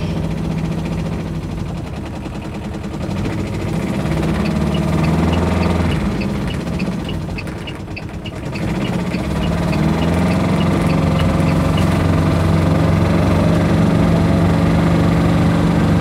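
The Aixam Mega Multitruck's little 400cc Kubota two-cylinder diesel runs loud inside the cab. The engine note sinks twice, then rises about nine seconds in and holds steady as the van pulls away. A light, rapid, regular ticking sounds through the middle.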